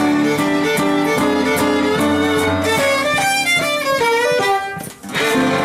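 Fiddle with acoustic guitar and piano playing an old-time swing fiddle tune, the fiddle running through a fast closing phrase. The tune stops about five seconds in, and applause starts.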